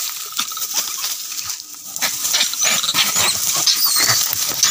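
Monkeys fighting: a dense scuffle of rapid scratchy noises, with high-pitched wavering squeals and shrieks joining in the second half.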